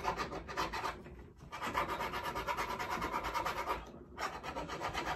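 Jeweler's hand file scraping across a cast sterling silver ring in quick, even strokes, about six a second, with short pauses about a second in and near four seconds. It is filing down the top of the ring's raised design to bring it out.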